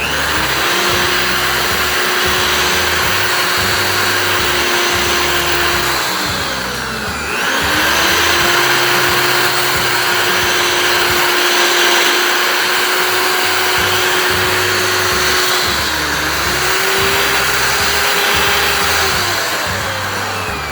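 Homemade drum sander's electric motor spinning up and running with a steady whine and hiss, winding down about six seconds in, then spinning up again and running on. It dips briefly later and slows near the end. Background music plays underneath.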